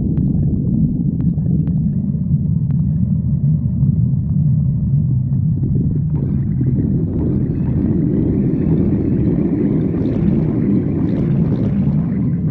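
Stomach growling: a continuous low rumble that grows fuller and brighter, with gurgling, from about halfway through, with a few faint clicks early on.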